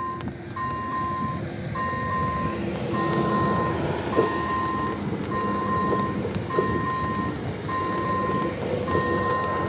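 AŽD 97 level-crossing warning signal sounding its repeating electronic bell tone, about once a second. A České dráhy RegioPanter electric multiple unit passes over the crossing, with steady wheel rumble and clacks of wheels on rail joints.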